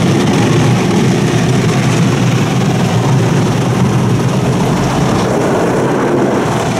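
PDQ ProTouch Tandem soft-touch car wash's top brush scrubbing over the windshield and roof under water spray, heard from inside the car: a steady, dense rush of noise.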